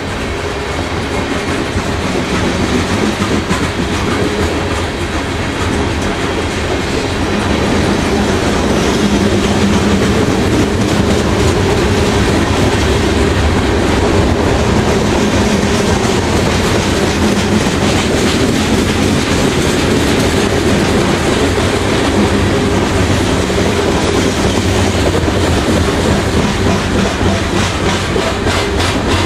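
Loaded coal hopper cars of a Canadian Pacific coal train rolling steadily past on curved track: the continuous noise of steel wheels on rail, with faint clicking near the end.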